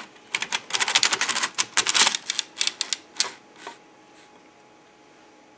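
3D-printed Legare-style circular sock machine being cranked round, with its latch needles clattering as the cam drives them up and down in their slots in a rapid run of clicks. The clicking stops after nearly four seconds.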